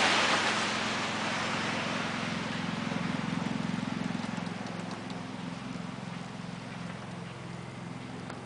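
Passing road traffic: a vehicle's rushing noise is loudest at the start and fades over the first second or so. It gives way to a steady low mechanical hum with a light regular pulse.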